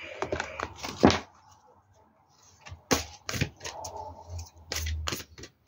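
Oracle cards being handled and shuffled: a few short, sharp slaps and clicks in the second half.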